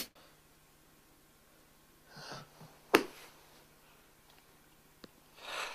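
A person sniffing softly in a quiet room, once about two seconds in and again near the end, with a single sharp click about three seconds in.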